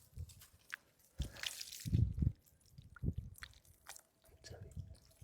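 Hands digging into wet pond mud after a rice-field eel in its burrow: several irregular wet squelches and soft thumps, the strongest about two seconds in.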